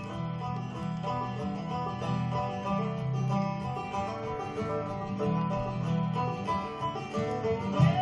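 Background music with plucked string instruments playing steadily.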